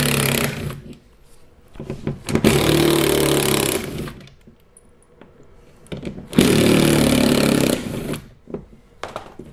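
Cordless power driver with a Torx T20 bit spinning out the screws that hold a car door's window-regulator motor: the end of one run about half a second in, then two more runs of about a second and a half each, a few seconds apart, with light clicks of handling near the end.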